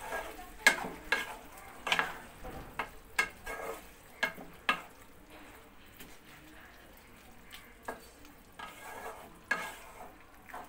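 Wooden spatula stirring chicken and vegetables in a nonstick kadai, scraping and knocking against the pan, with strokes coming quickly in the first half and more sparsely near the end. A low sizzle from the cooking food runs underneath.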